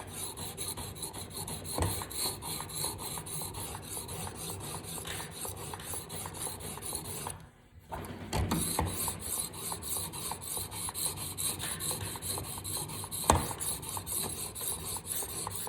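Finer-grit diamond sharpening stone on a TSPROF guided knife sharpener, stroked back and forth along a knife edge with a continuous scratchy rasp. The finer stone is cutting less than the coarse one, only refining the edge. It stops briefly about halfway, and there is a sharp click near the end.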